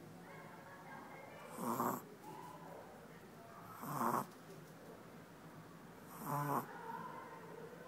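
A sleeping dog snoring, with three loud snores about every two and a quarter seconds and faint breathing and a thin whistle between them.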